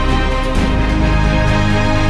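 Soundtrack music laid over the footage, with sustained chords that change about half a second in.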